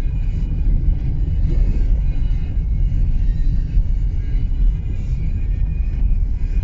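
Steady low rumble of a Subaru driving along an unpaved road, with tyre and road noise heard from inside the car.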